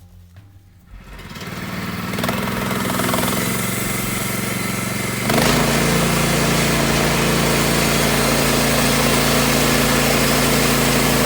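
Small gasoline engine running, coming up to speed over the first couple of seconds and stepping up to a higher, louder steady run about five seconds in.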